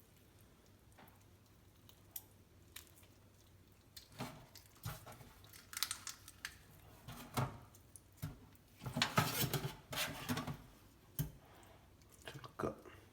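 Kitchen utensils clinking, knocking and scraping during food preparation: scattered sharp clicks, then a longer burst of scraping and rattling about nine seconds in.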